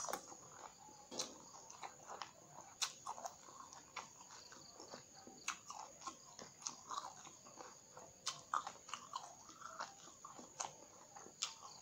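A person biting and chewing raw round green eggplants (terong hijau): sharp crunches and mouth clicks at irregular intervals.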